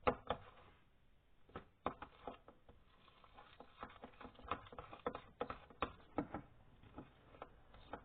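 Irregular clicks and taps of a spoon against a plastic bowl while slime is mixed and the activator is stirred in.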